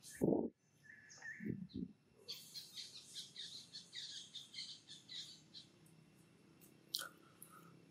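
A bird chirping in a rapid, even series, about five high notes a second, for roughly three seconds. A short low thump comes right at the start, and a sharp click comes near the end.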